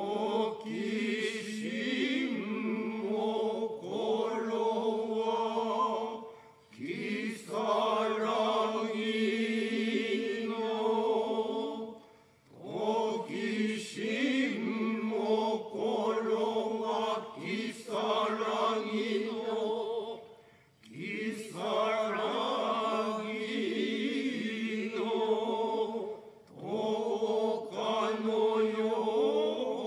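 Kanze-school noh chant (utai) sung in unison by a group of men and women, in long phrases several seconds each with brief breaks between them.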